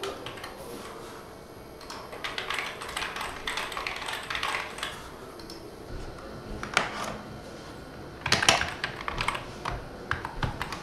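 Typing on a computer keyboard. A quick run of keystrokes starts about two seconds in, followed by a few harder, louder strikes and scattered taps near the end.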